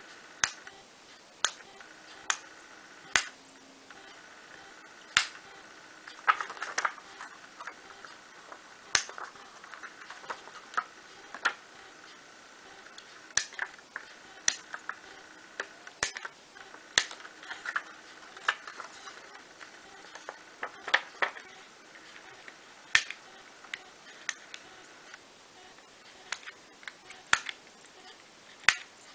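Fine pointed parchment-craft scissors snipping through parchment paper while cutting out a pierced pattern: sharp, irregular clicks, one or two a second, sometimes several in quick succession.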